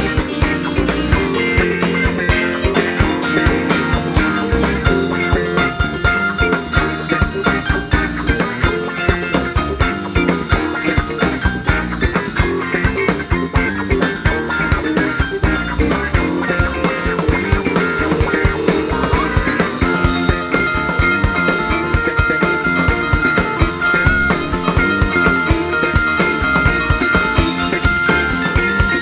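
Rock band playing an instrumental jam live, with guitar over bass and drum kit; about two-thirds of the way in a lead line settles into long held high notes.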